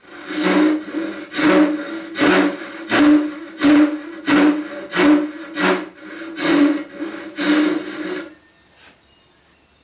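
Hishiki Japanese rip saw cutting down a dovetail pin line in an oak board, with about ten steady rhythmic rasping strokes that stop about eight seconds in.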